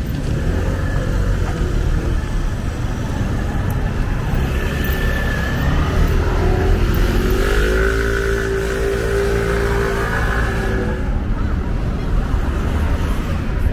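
Street traffic: a motor vehicle's engine running over a steady low rumble, its pitch rising about seven seconds in and holding for a few seconds before it fades.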